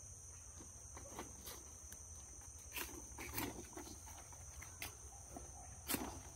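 Leaves and stalks of machán plants rustling and a few sharp snaps as a machete cuts a large leaf from its stalk, the loudest snap near the end. A steady high insect drone runs underneath.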